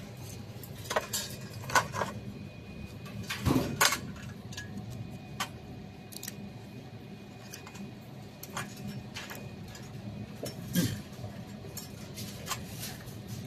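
Scattered clicks and taps of hands working on a car navigation head unit's metal chassis and plastic frame while seating flat ribbon cables into the board's connectors, over a steady low hum. The loudest knocks come about 1, 2 and 3.5 to 4 seconds in.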